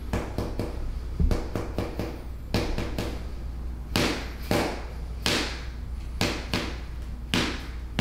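A mallet striking a metal instrument held against the shoulder muscles in hammer therapy: a string of sharp knocks, irregular and about two to three a second.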